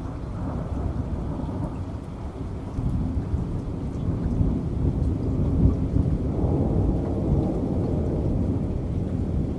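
Thunderstorm: a long, low rumble of thunder over steady rain, swelling about three seconds in.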